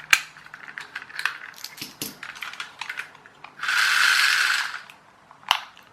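Small plastic clicks and knocks as AA batteries and the battery compartment are fitted into a wired remote control toy car. This is followed by its small electric motor and gearbox whirring for about a second as it is first run, then stopping, with one sharp knock near the end.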